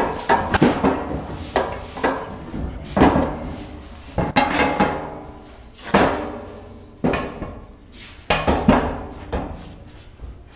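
Large metal 16-inch gun powder cans clanking against each other and the steel storage rack as they are handled and slid into place. A dozen or more sharp, ringing metallic knocks come at irregular intervals.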